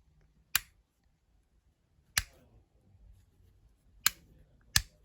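Rocker switch on a new UK wall socket outlet being flicked on and off: four sharp clicks, the last two close together.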